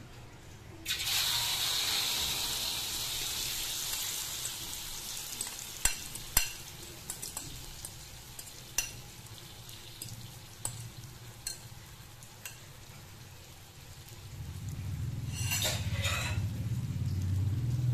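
Beaten egg batter with carrot and spring onion hitting hot oil in a wok: a loud sizzle starts suddenly about a second in, then settles to a quieter steady frying. A metal spoon clinks against the bowl and wok several times as the batter is scraped in and spread, and a low rumble comes in near the end.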